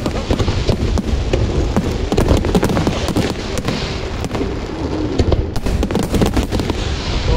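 Fireworks display at its height: many aerial shells bursting in quick succession, a dense run of bangs and crackle over deep booms, with no break.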